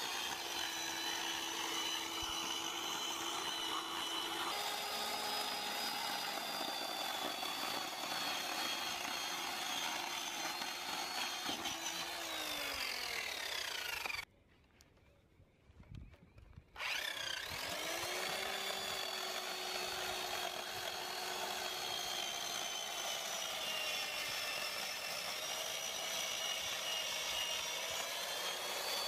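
Small corded electric chainsaw running and cutting through a log, a steady high whine. About halfway it winds down in pitch and stops, then after a couple of seconds spins back up and keeps cutting.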